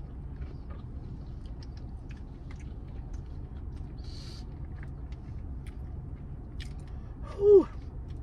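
A woman chewing sushi, with soft wet mouth clicks over a low steady hum. About halfway through she draws a short hissing breath. Near the end she lets out one loud falling "ooh", a reaction to the heat of the wasabi.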